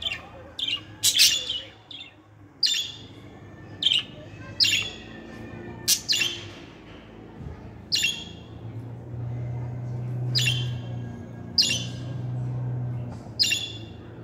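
Budgerigars calling: a string of about fifteen short, sharp, high chirps at uneven intervals. A low steady hum runs under the calls from about a third of the way in until near the end.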